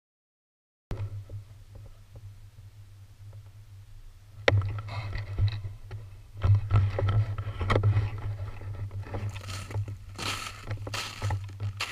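Footsteps crunching through snow and brush, with scraping and rubbing handling noise on the gun-mounted camera over a steady low rumble, starting about a second in. A sharp click comes about four and a half seconds in, and the crunching gets busier from there.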